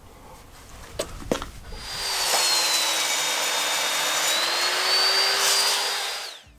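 Ryobi sliding compound miter saw cutting through a thick wooden post. After two clicks, the motor whines up, its pitch sags as the blade bites into the wood and recovers as the cut finishes, and it stops abruptly near the end.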